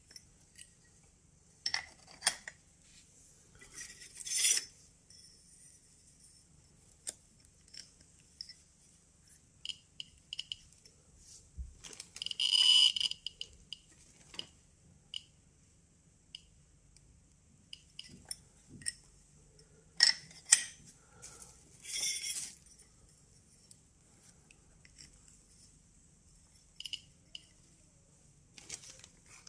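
Geiger–Müller counter tube on a tester, clicking irregularly as it registers counts, with a few louder short clinking bursts about 2, 4, 13, 20 and 22 seconds in.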